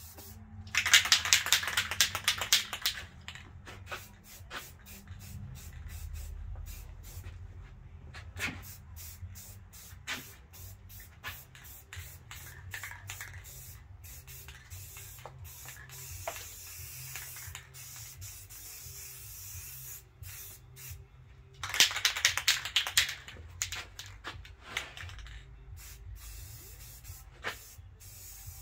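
Aerosol spray-paint can hissing in bursts: two long sprays, about a second in and again about 22 seconds in, with many short spurts between.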